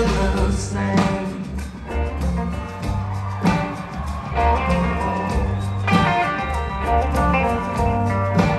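Live blues-rock band playing an instrumental passage between sung lines: electric guitar over a heavy bass line and drums.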